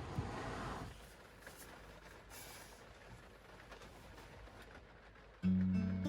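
Low rumble of storm wind around the van with a brief rustle near the start; about five seconds in, an acoustic guitar starts playing, notes ringing out one after another.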